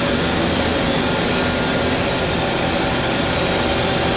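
Haas VM3 vertical machining center running: a steady mechanical hum with several steady tones, without a break.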